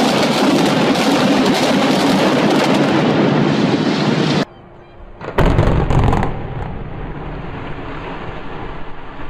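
Loud, heavy rumbling of a building collapsing in a demolition. It cuts off abruptly about four and a half seconds in. About a second later a second short, deep rumbling burst comes, then a lower, steady rumble.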